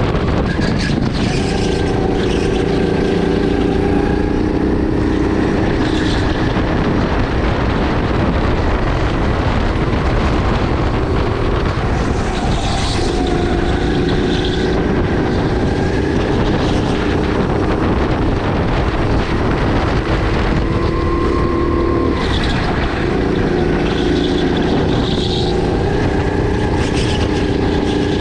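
Sodi RX8 rental kart's 270cc LPG-fuelled four-stroke engine running hard on track, its pitch climbing and dropping repeatedly.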